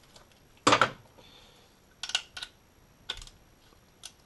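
Scattered sharp metallic clicks and clinks of a ratchet and hex socket being handled and fitted onto a bolt on top of the engine, about five in all, the loudest about a second in.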